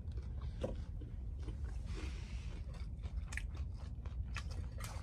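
A person chewing a crisp deep-fried spring roll, with small crunches at irregular intervals.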